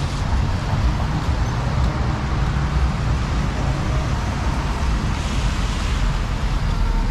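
City street traffic on wet roads: a steady low rumble of cars, with one car passing close about five seconds in, its tyres hissing on the wet pavement.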